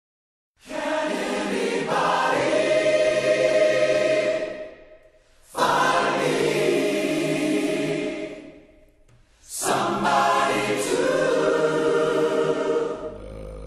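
Background music of a choir singing in three long phrases with short pauses between them; softer music takes over near the end.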